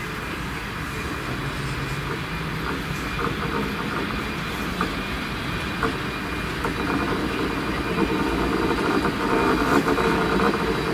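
ČD class 682 Pendolino electric train rolling slowly closer, with a few sharp clicks over its steady running noise. It grows gradually louder as it nears.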